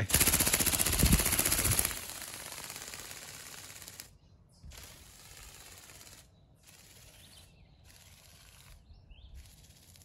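Go Go Bird RC ornithopter flapping its wings, a fast rattling buzz that is loud for about two seconds as it takes off, then fades as it flies away and is gone about four seconds in.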